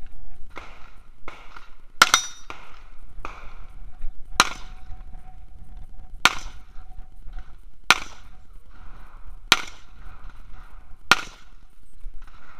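Carbine gunshots at a steady pace, about one every one and a half to two seconds, with a quick double about two seconds in. Fainter knocks come between the shots.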